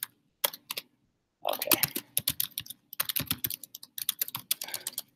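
Typing on a computer keyboard: quick runs of keystrokes with a short pause about a second in.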